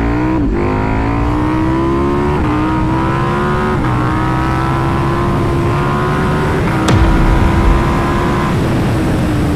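KTM 1290 Super Duke R's V-twin engine at full throttle in a 0–200 km/h run. Its note climbs in pitch and dips briefly at each quick upshift, about four times, over heavy wind rush. Near the end the pitch levels off and sags slightly as the throttle eases.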